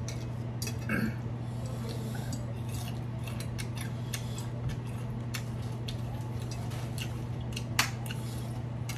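A metal spoon and fork clinking and scraping against a ceramic dinner plate while eating: a scatter of small, sharp clicks, one sharper clink near the end, over a steady low hum.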